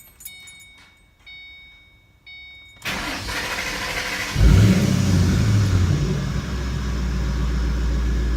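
A few clicks and short beeps, then the 2006 Mustang GT's 4.6-litre V8 cranks about three seconds in. It catches with a brief rev flare at about four and a half seconds and settles into a steady idle. This is the first start on a freshly flashed tune for a new cold air intake.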